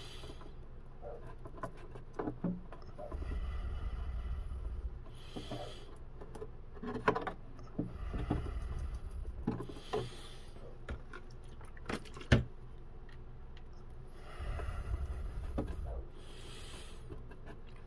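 A small paintbrush dabbing and rubbing wet epoxy and fiberglass hair into a seam on a carbon-fibre battery tray, with scattered light taps on the hull. A few soft rushes of noise come and go every few seconds.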